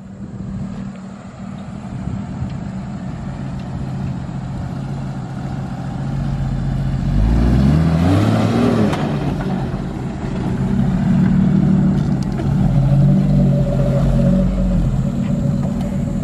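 Jeep Wrangler YJ engine accelerating hard toward the camera and up a steep grassy bank, growing steadily louder. Its pitch swings up and down about eight seconds in, then it runs loud under load.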